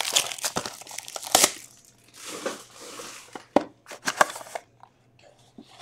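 Plastic shrink-wrap being torn and crumpled off a trading card box: dense crackling for about the first second and a half, then scattered crinkles and clicks as the wrapper is pulled away.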